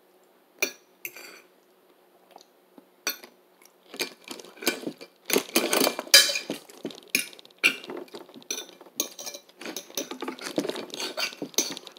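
A metal fork clinking and scraping against a dish during eating: a few scattered clicks at first, then a quick run of short scrapes and clinks from about four seconds in.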